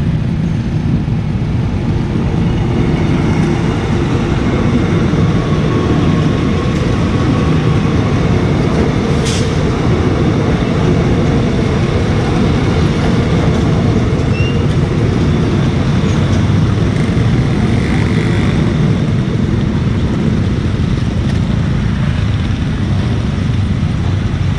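Electric airport train (a KAI Commuter electric multiple unit) rolling past close by: a steady rumble of wheels on the rails. There is one brief sharp tick about nine seconds in.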